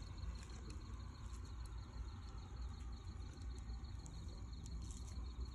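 Faint, steady high trill of insects, such as crickets, over a low rumble.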